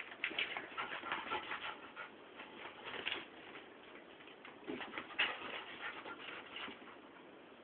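A dog chasing its tail, making a rapid, irregular run of short noises with brief pauses.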